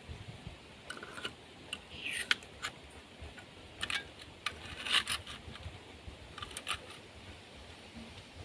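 Irregular sharp clicks and light knocks, about a dozen over several seconds, with the loudest about two and five seconds in.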